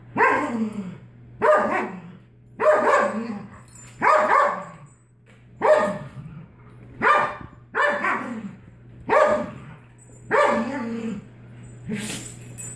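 A dog barking at another dog in a squabble over a rawhide chew: about ten loud barks, roughly one every second and a quarter, each falling in pitch.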